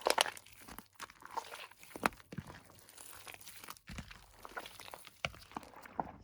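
Crunchy slime squeezed and kneaded by hand, with irregular crunching crackles and pops; a loud cluster of crackles opens it and another comes about two seconds in.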